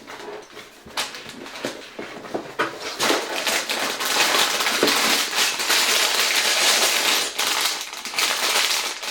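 Sealed plastic Lego parts bags crinkling and rustling as they are handled, with many small clicks; the crinkling gets louder about three seconds in.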